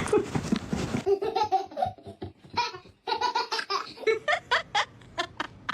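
A person laughing in a run of short, quick bursts. A noisy stretch in the first second ends about a second in.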